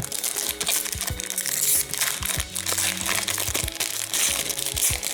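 Crinkling and tearing of a hockey card pack's foil wrapper as it is ripped open and crumpled, over background music with a steady beat.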